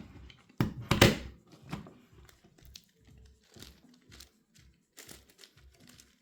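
Layers of a large plastic 11x11x11 Rubik's cube being turned by hand: a run of clicks and clacks, loudest about a second in, then softer irregular clicking.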